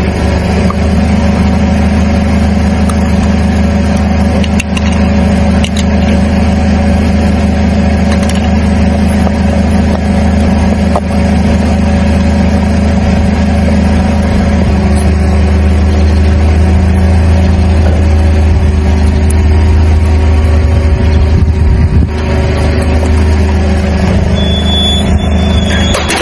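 Car engine running steadily close to the ground, a low even drone with a few faint clicks.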